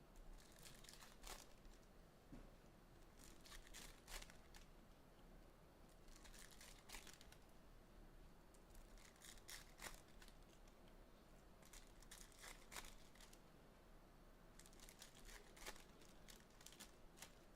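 Foil trading-card pack wrappers being torn open and crinkled, faint, in short crackly bursts every two to three seconds.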